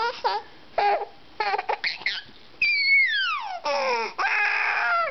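A baby babbling in short high-pitched sounds. About two and a half seconds in comes a long squeal that slides steeply down in pitch, followed by a drawn-out babbling cry.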